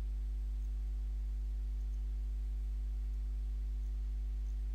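Steady low electrical hum at the mains frequency, with its overtones, running without change.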